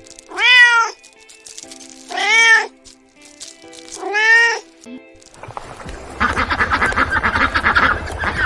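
A domestic cat meowing three times, each a single meow that rises and falls in pitch, about two seconds apart. From about five and a half seconds in, a louder, rapidly pulsing call takes over.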